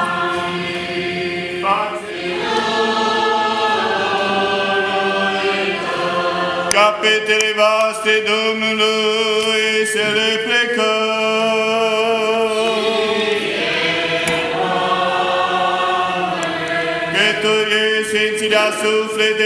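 Eastern Orthodox liturgical chant from the service of the blessing of the waters at Epiphany, sung by several voices. A steady low held note runs under a slower melody of long, sustained notes.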